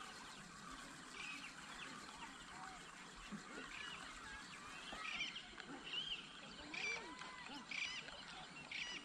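Birds calling in the open air: short, high chirping calls repeating about once a second, some with sliding pitch, growing more frequent and louder about halfway through, over a faint steady hiss.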